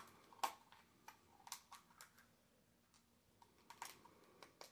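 Faint, scattered small clicks of a plastic Easter egg's two halves being pressed and fitted together, with two pennies inside, and a short lull in the middle.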